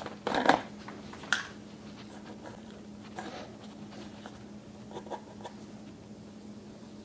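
Gloved hands handling a new spin-on hydraulic oil filter: two short scuffing rubs in the first second and a half, then a few faint touches, over a steady low hum.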